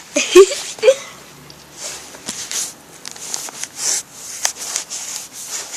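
Close-up rubbing and wiping on a tablet camera lens, a series of short scratchy swishes and small clicks, after a brief vocal sound at the start.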